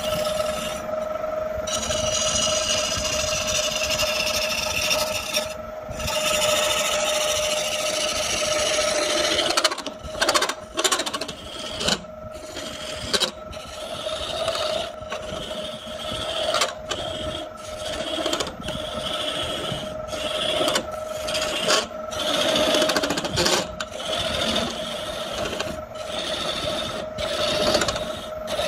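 Wood lathe running with a steady motor whine while wood is scraped on the spinning workpiece. About ten seconds in, the scraping breaks into many short strokes with brief gaps.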